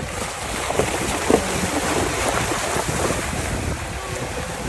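Wind buffeting the microphone over a steady rushing noise, with a single sharp knock about a second in.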